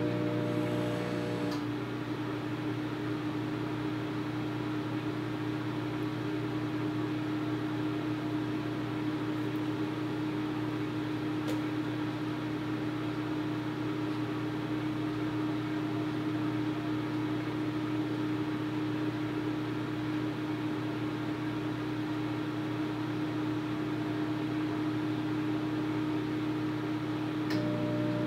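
Microwave oven running while it heats a bowl of oatmeal, giving a steady hum. About a second and a half in, some of the hum's higher tones drop away, and they come back near the end.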